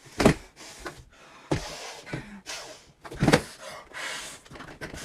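A person's sharp gasps and heavy breaths, in a series of sudden bursts; the loudest come about a quarter second in and just past three seconds in.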